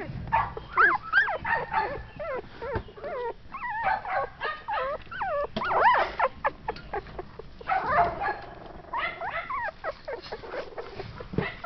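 Shetland sheepdog puppies whimpering and squeaking: many short, high calls that slide up and down in pitch, one after another. Shredded newspaper bedding rustles under the puppies in between.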